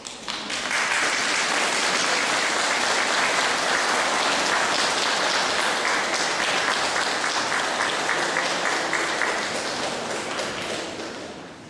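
Audience applauding. The clapping swells within about a second, holds steady, and fades away near the end.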